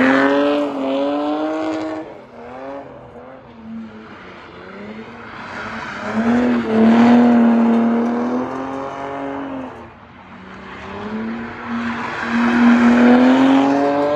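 Drift cars sliding: an engine held high in the revs in three long surges, each climbing in pitch as it starts, over the screech of the tyres.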